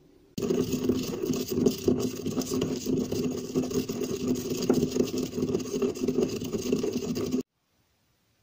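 Marble pestle grinding and pounding whole cloves, cardamom pods and black peppercorns in a marble mortar: rapid, continuous grinding and knocking strokes that start suddenly and cut off about a second before the end.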